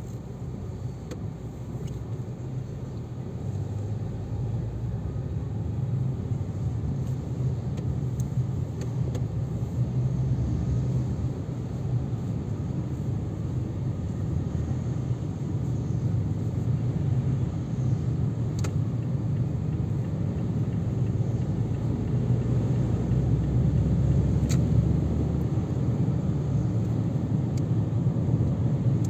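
Mazda 3 on the move: a steady low rumble of engine and road that grows gradually louder.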